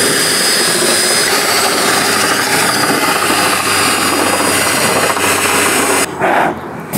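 Cordless drill running with a twist bit, enlarging tight bolt holes in a car's sheet-metal hood: a steady motor whine with the bit cutting metal. It stops about six seconds in.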